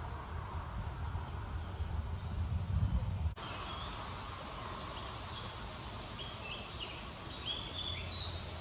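A low, gusty rumble of wind buffeting the microphone, cut off suddenly about three seconds in; after it, small birds chirp with short, quick notes over a steady outdoor hiss.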